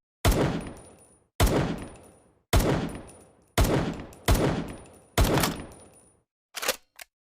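Makeshift sound effect of an M1911 pistol firing: six sharp gunshots about a second apart, each trailing off in a decaying echo. Two short, quieter clicks follow near the end.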